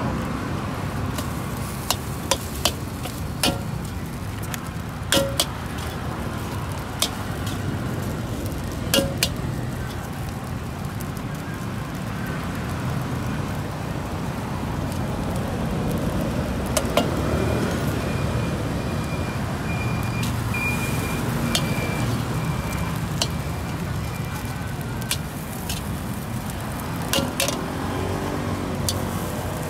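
Stir-frying in a wok: steady frying with sharp clanks of the spatula against the wok every few seconds, over a steady rumble of road traffic.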